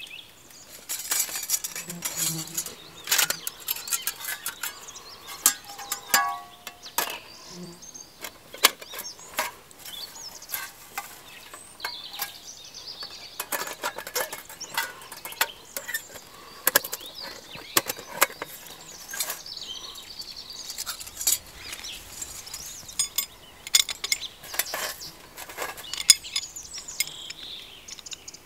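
Repeated light clinks, taps and rattles of metal on metal, with cloth rustling, as a flat sheet-metal fire bowl is handled and its copper rods fitted together.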